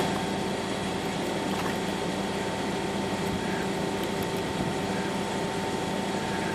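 Steady mechanical hum of a running motor, with a few fixed tones held throughout and no clear strikes or clicks.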